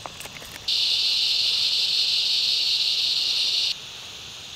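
Loud, steady, high insect buzz that starts abruptly under a second in and cuts off abruptly about three seconds later. A brief crinkle of a plastic packet comes right at the start.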